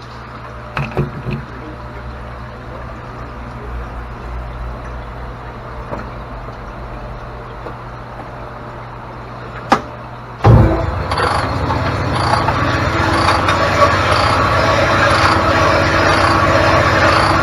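Cylinder honing machine in a machine shop, a low steady hum with a few knocks, then starting up about ten seconds in and running louder with a regular pulse about every three-quarters of a second as the coarse stone cuts the bore of a small engine block.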